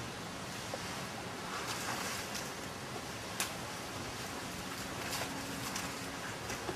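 Steady rushing outdoor noise with a few sharp clicks, the loudest about three and a half seconds in; a faint low hum comes in past the halfway point.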